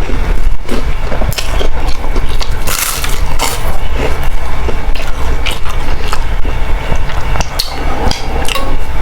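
Close-miked eating of boiled instant noodles (Indomie rebus) with krupuk crackers: irregular chewing and biting, with many sharp clicks and crackles.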